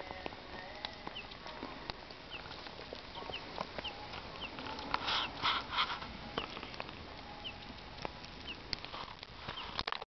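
Wood fire crackling on glowing embers, with sharp irregular pops throughout. A cluster of three louder short bursts comes about five seconds in, and faint short high chirps recur over it.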